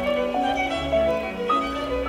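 Instrumental background music: a melody of short held notes, changing several times a second, over a low bass line.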